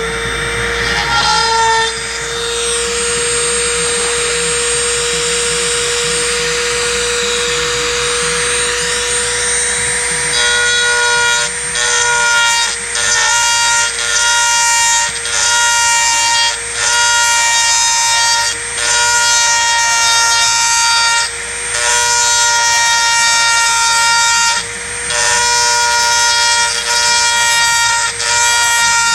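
Dremel rotary tool with a carbide cutter running at high speed and cutting out an opening, a steady high whine. After about ten seconds of continuous cutting it goes in short passes about a second long with brief breaks between them.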